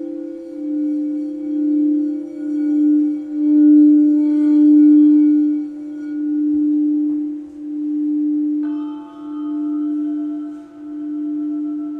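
Crystal quartz singing bowl sounding one low sustained tone that swells and fades in a slow, even pulse. About nine seconds in, a second, higher ringing tone with bright overtones joins it.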